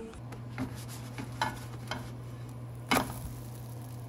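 Pancake frying in a non-stick pan: a soft sizzle with a few scattered sharp pops, the loudest about three seconds in, over a steady low hum.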